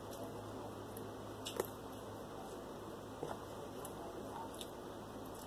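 Quiet chewing of food, with two light clicks of a plastic fork against the food container, over a steady low hum.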